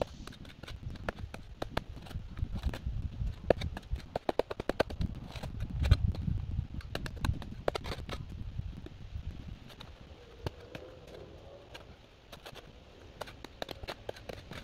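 Spade cutting and scraping into grassy soil: a scatter of sharp clicks and crunches with dull thuds, busiest about four to eight seconds in.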